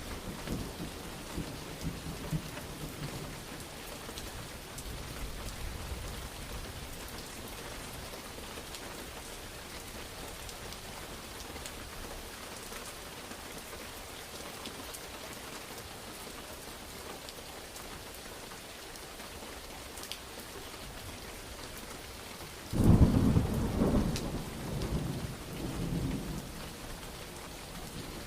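Steady heavy rain hissing, with the tail of a thunder rumble fading in the first few seconds. Near the end a sudden loud thunderclap breaks in and rolls away over about three seconds.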